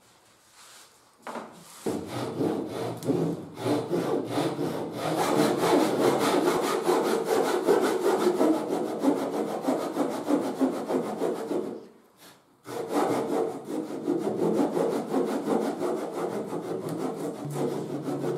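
Japanese pull saw cutting by hand through a wooden door batten, in rapid rasping strokes. It starts about two seconds in, stops briefly about twelve seconds in, then carries on.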